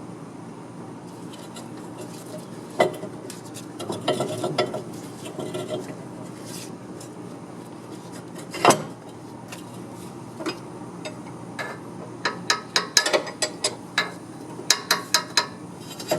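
Metal hand tools clinking and knocking against metal: scattered sharp clicks and taps, with a loud knock about halfway through and a quick run of clicks near the end.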